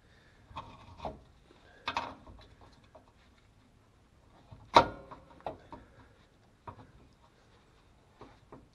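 Scattered knocks and clicks of tools and parts being handled, nine or so separate hits with the loudest, sharpest knock just under five seconds in.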